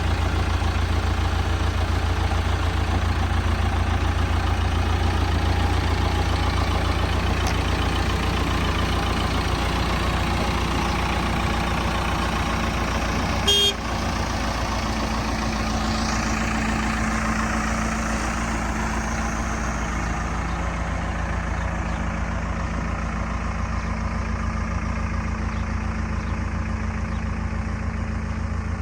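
JCB 3DX backhoe loader's diesel engine running steadily at a low, even drone. About halfway through there is one brief sharp sound with a tonal ring.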